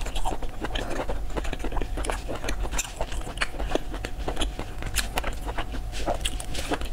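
Close-up chewing of spicy braised squid: wet mouth smacks and many short, irregular clicks.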